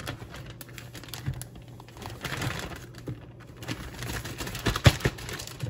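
Clear plastic bag crinkling and rustling as a fish fillet is handled inside it in dry fish-fry breading, with scattered small clicks and one sharp click about five seconds in.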